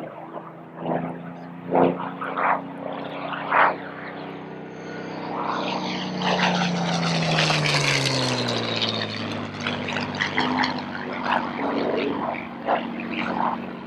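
Spitfire Mk.IXc's Rolls-Royce Merlin V12 in flight, passing by: the engine note swells and falls in pitch as it goes past, about six to nine seconds in. A few short loud bursts come in the first few seconds.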